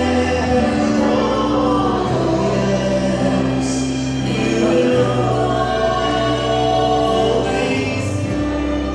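Choral music: voices singing slow, long-held notes over a low accompaniment whose bass note changes every second or two.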